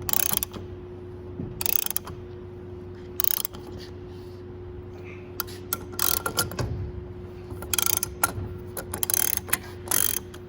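Hand-operated AC hose crimping tool being tightened, clicking in short bursts that repeat every second or two and come closer together in the second half, as it squeezes the fitting onto the hose.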